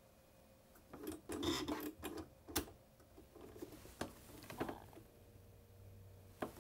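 Computerized sewing machine, just switched on with a stitch selected, giving a scattered series of faint clicks and short mechanical rattles, with a faint low hum in the later part.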